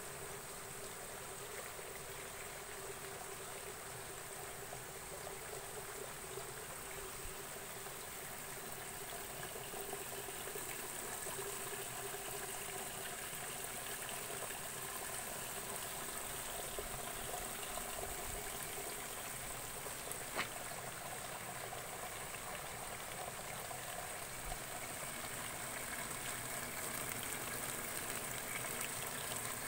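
Water trickling and splashing steadily from the outlets of hydroponic lettuce growing gullies into a collection gutter below, growing a little louder in the second half. A single brief click about twenty seconds in.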